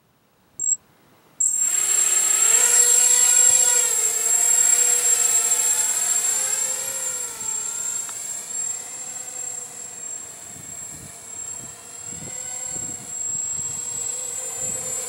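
Eachine Assassin 180 FPV racing quadcopter in flight: its four brushless motors and propellers whining, the pitch rising and falling as the throttle changes. The sound starts suddenly about a second and a half in, with a steady high-pitched tone above it.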